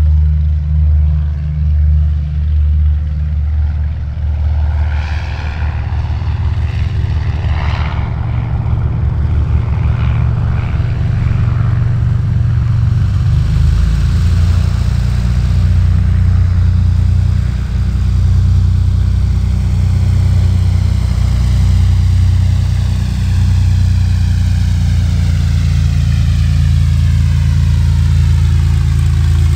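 Cessna 182T Skylane's six-cylinder Lycoming engine and propeller running steadily at low power, growing a little heavier about halfway through.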